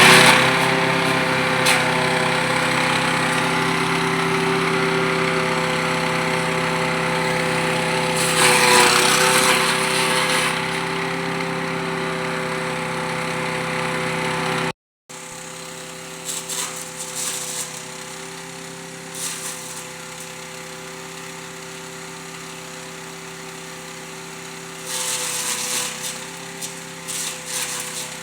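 Wood chipper's engine running steadily, with louder bursts of noise about eight seconds in and again near the end. It cuts out briefly about halfway, then carries on quieter.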